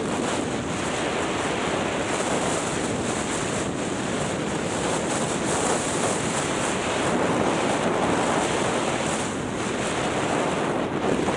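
Steady rush of wind buffeting the helmet-mounted camera's microphone, mixed with the hiss of skis sliding over groomed snow on a downhill run.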